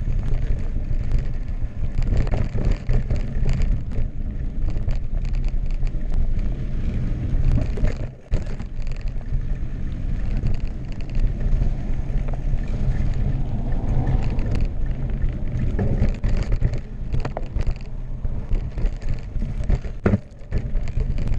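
Full-suspension carbon mountain bike (2016 Specialized Enduro Expert Carbon) riding fast down a dirt trail: a steady low rumble of wind buffeting the action-camera microphone and tubeless tyres rolling over dirt, with frequent knocks and rattles from the bike over bumps. The noise drops briefly about eight seconds in and again near the end.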